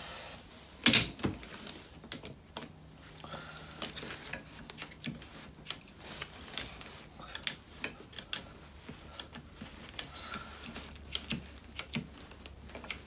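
Irwin Quick-Grip bar clamps being worked by hand to release their pressure on a bush-pressing jig: one sharp, loud click about a second in, then a run of small, irregular plastic-and-metal clicks from the clamp triggers and release levers.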